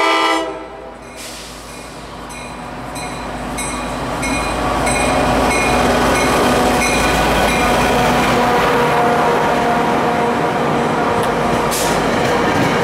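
A Tri-Rail commuter train's locomotive horn ends about half a second in. The locomotive then passes close by, its engine growing louder, while a grade-crossing bell dings about twice a second. The bi-level coaches then roll past.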